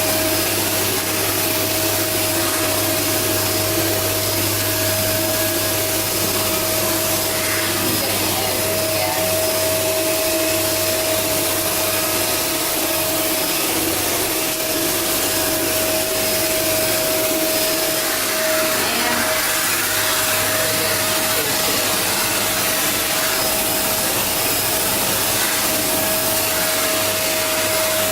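Shark Rotator Powered Lift-Away vacuum running steadily at full suction with its motorized brush bar on, a constant whine over rushing air as it cleans pet hair from a fabric cushion.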